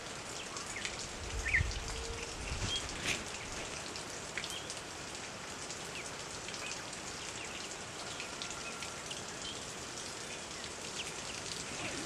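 Steady outdoor background hiss with scattered short, high chirps and faint call notes from small birds. Two low thumps come about a second and a half and two and a half seconds in.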